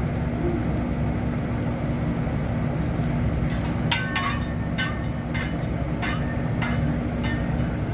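Hibachi chef's metal spatulas clinking and tapping on the steel griddle, a quick run of about nine ringing clinks in the second half, over a steady low hum.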